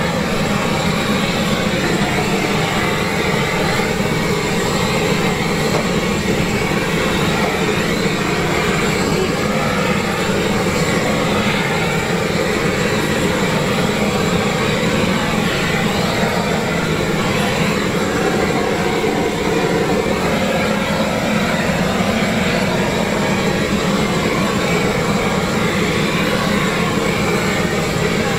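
Handheld gas blowtorch blowing a steady, loud rush of flame down onto meat on a wire grill.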